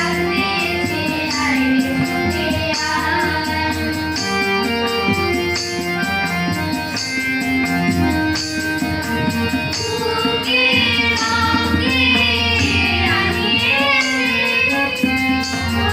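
Women's and girls' voices singing a song together to harmonium and tabla accompaniment, with a steady drum beat under the sustained harmonium notes.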